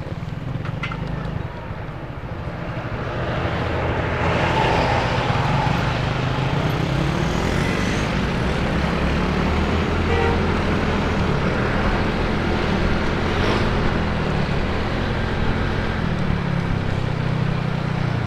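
Yamaha scooter's small single-cylinder engine running as the rider pulls away and cruises, with a steady low hum. Wind and road rush build up over the first four seconds or so as it gathers speed, then hold steady.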